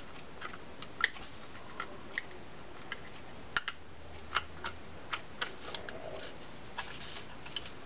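Scattered light clicks and taps of a Newell C229 reel's side plate being handled and seated on the graphite frame while it is centered, about a dozen irregularly spaced ticks.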